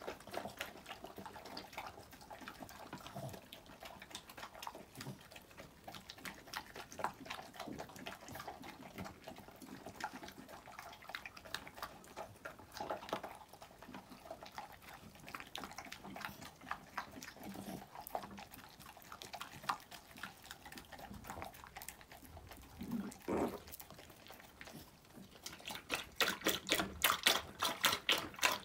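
A poodle and a golden retriever eating from ceramic bowls: soft chewing, smacking and licking with small clicks against the bowls. Near the end a fast, regular run of louder lapping as the golden retriever laps from a shallow dish.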